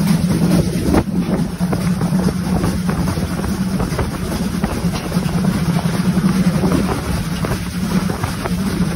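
A steam-hauled train running, heard from beside the moving coaches, with a steady low rumble and heavy wind rushing over the microphone.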